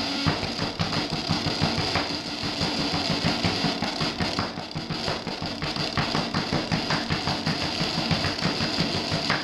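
Throbbing electronic noise music: a fast, even low pulse over a steady hum and a steady high hiss.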